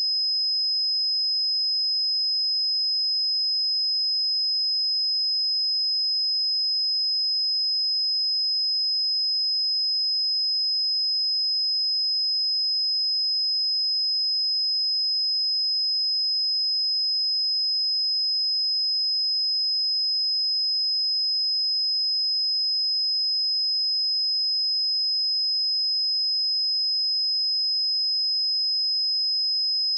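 A pure 5075 Hz sine-wave test tone, one steady high-pitched pitch held unchanged throughout.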